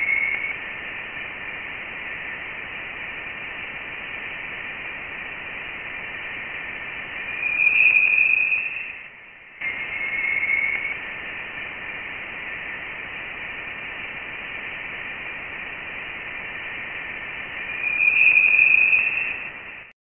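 Radio-like hissing static with steady high tones, presented as the sound of interstellar space: a sonification of space data. It swells loudly twice, about ten seconds apart, and breaks off briefly in between, as if the same clip is looping.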